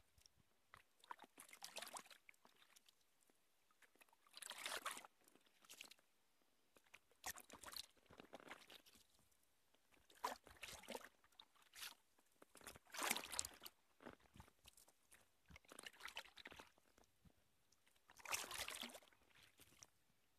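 Kayak paddle blades dipping into and pulling through river water, a splashy swish about every three seconds, with small drips and taps between strokes.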